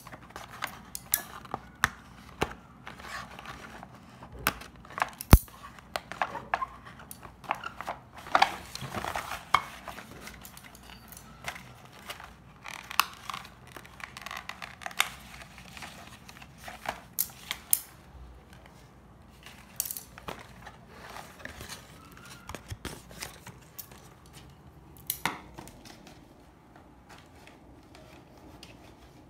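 Cardboard and plastic toy packaging being handled and cut with scissors: scattered snips, clicks and rustles of card and plastic, with the sharpest click about five seconds in.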